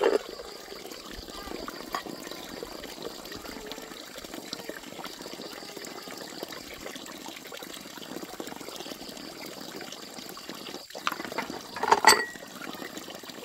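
Water running or pouring steadily, with a brief louder sound near the end.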